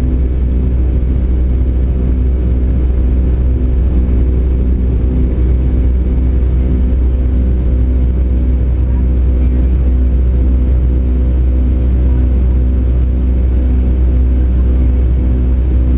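Steady cabin drone inside a Boeing 757-200 in flight: a deep rumble of engines and airflow, with a hum of steady tones that pulse in a slow, regular beat.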